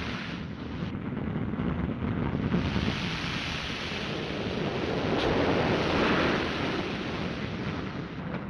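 A train-pushed snow plow ramming through a deep drift: a dense, rushing roar of churned snow and the running train, swelling about five to six seconds in.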